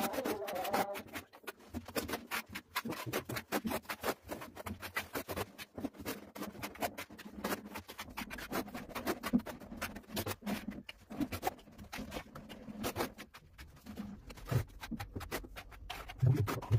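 Steel trowel spreading tile adhesive across a concrete ceiling and scooping it off a hand-held board: a dense, irregular run of short scrapes and clicks.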